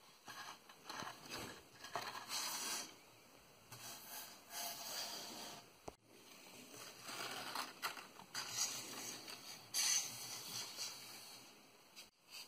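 Paper polyhedron nets rustling and scraping across card as their strings are pulled and they fold up, in uneven bursts. The sound drops out abruptly twice, about six seconds in and near the end.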